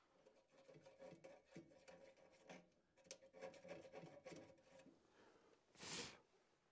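Faint scraping and rubbing as a small Allen wrench digs caulk out of a clogged pressure switch port on a gas furnace's draft inducer, with a short rush of air about six seconds in.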